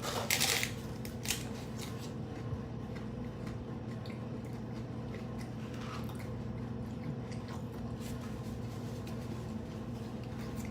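A crunchy bite into a hard-shell taco right at the start, then a few small clicks over a steady low hum.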